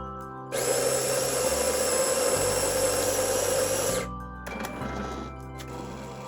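A small electric motor runs loudly for about three and a half seconds, starting and stopping abruptly, over background music.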